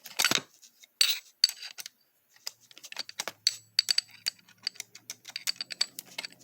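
Rapid, irregular small metal clicks and clinks as a screwdriver turns a screw into a doorknob's metal housing, with a short pause about two seconds in.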